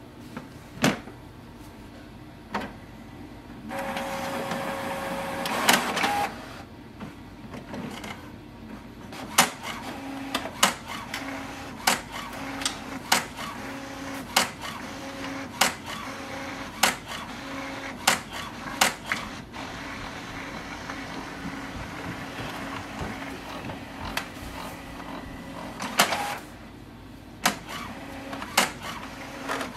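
HP OfficeJet Pro 8210 inkjet printer printing a page in quiet mode, which the owner says makes less noise. About four seconds in, a louder whirring lasts some two seconds; after that comes a steady mechanical hum with a sharp click about once a second.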